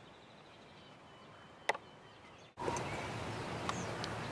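Field ambience with faint songbird chirps over a steady hiss, and one sharp click about halfway through. A little past halfway the background hiss suddenly grows louder, with a few more high chirps.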